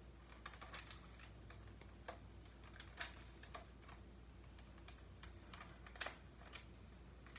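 Faint plastic clicks and clacks of a Nerf Rival Takedown pump-action blaster being reloaded by hand, with two sharper clacks about three and six seconds in.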